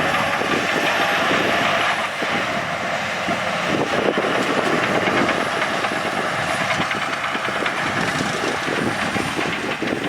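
Heavy earthmoving machinery at work: a diesel engine running steadily under a dense, irregular rattling clatter.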